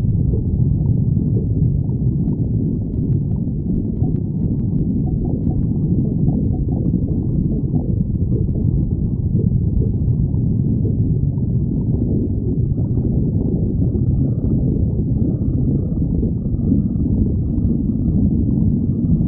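A person's stomach growling: a steady, unbroken, low-pitched rumbling.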